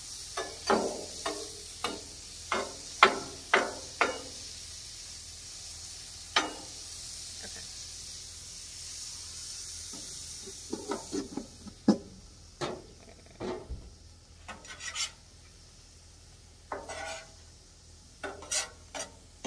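Chicken, shrimp and vegetables sizzling on a Blackstone flat-top griddle, with metal spatulas scraping and clacking against the steel cooktop as the food is turned. There is a quick run of strokes in the first few seconds and more near the end, and the sizzle eases partway through.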